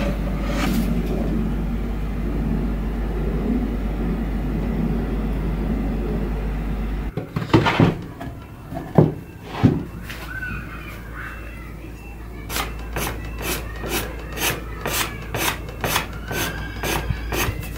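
Steel hand tool scraped in short, regular strokes along the dark-stained wooden edge of a coffee tabletop, about three strokes a second, working the old stain off the rim. Before that, a steady low hum with the tabletop being handled, and a few sharp knocks near the middle.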